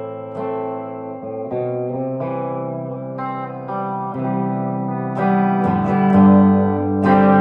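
1968 Gibson SG Junior electric guitar, its single P90 pickup played through an amp: chords picked and left ringing, changing every second or so and getting louder about five seconds in.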